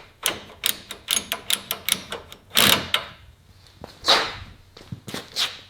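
Hand tools working on a car's body while the hood is unbolted: a quick run of about eight sharp metallic clicks, then louder clanks with short rattling tails about halfway through and again about a second later, and a couple more clicks near the end.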